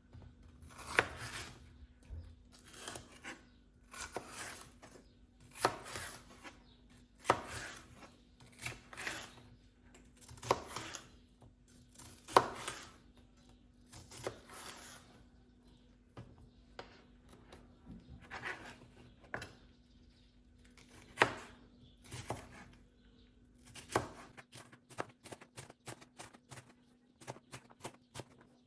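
Sharp cutting or chopping strokes, one every second or two, with a quicker run of light ticks near the end.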